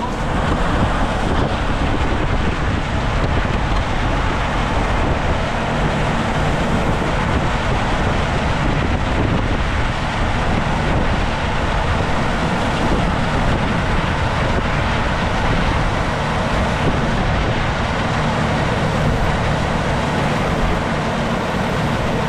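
Farm machinery running steadily, a loud even mechanical noise with some wind on the microphone.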